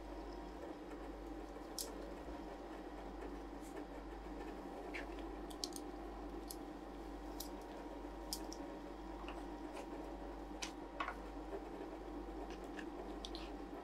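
Steady hum of an Ultratec ICR 2450 roll ice cream machine running, with scattered light clicks and scrapes as a spatula lifts frozen ice cream rolls off the steel cold plate and sets them in a paper cup.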